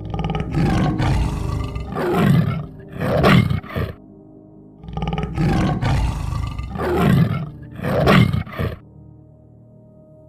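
A tiger roaring: a long rough call followed by two louder roars that fall in pitch, the same sequence heard twice about five seconds apart, over soft ambient music.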